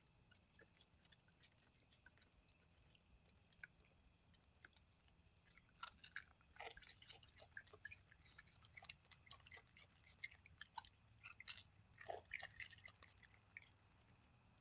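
Faint, irregular crunching and clicking of a baby raccoon gnawing on a stick, mostly in the second half, over a steady faint high hiss.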